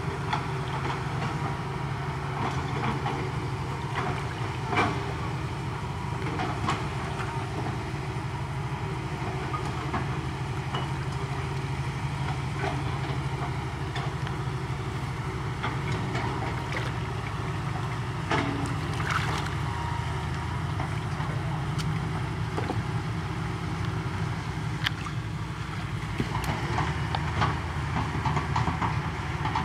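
Water splashing and sloshing in scattered bursts as a person wades chest-deep through a muddy ditch and gropes under the surface, over a steady low rumble.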